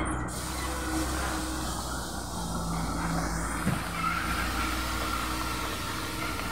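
Diesel engine of a semi-trailer truck running steadily as the rig pulls away, a low engine hum.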